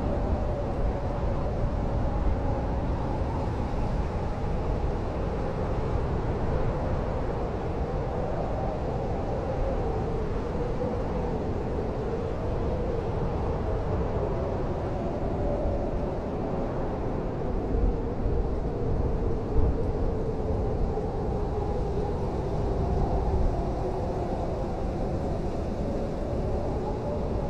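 Blizzard wind howling over a steady low rumble, its moaning pitch slowly wavering up and down as the gusts rise and ease.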